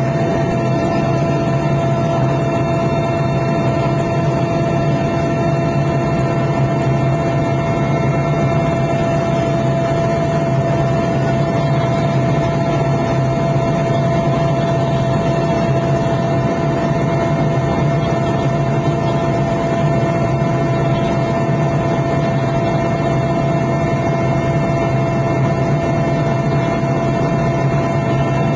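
Steady cabin noise of a Mi-8 helicopter in flight: its twin turboshaft engines and rotor drone, with a constant whine running over it.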